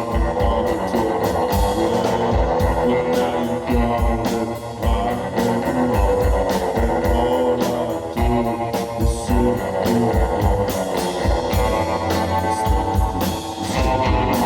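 Background music with guitar, organ and a steady beat.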